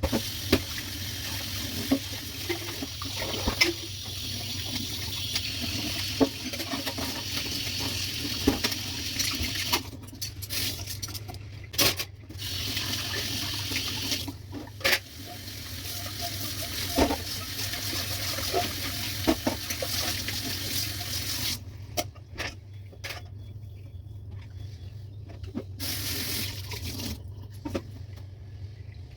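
Kitchen tap running into a sink, shut off briefly a few times and for several seconds in the second half, with scattered knocks and clatter in the sink.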